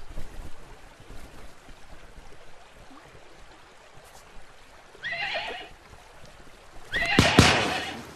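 A horse whinnying twice, once about five seconds in and again near the end; the second whinny is louder and longer.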